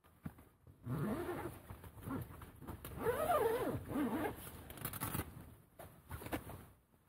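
A tent door zipper being opened in several pulls, a rasping that rises and falls in pitch with the speed of each pull. The longest pull comes about three seconds in.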